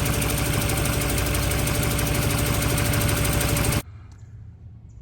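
Mitsubishi Starion four-cylinder engine idling roughly with an uneven pulsing beat. It is misfiring, not running on all four cylinders because of its spark plug wires. The engine sound cuts off sharply about four seconds in.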